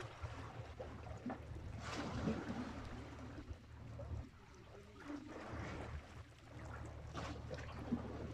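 Wind rumbling on the microphone, with sea water washing and splashing in swells that rise and fall every couple of seconds.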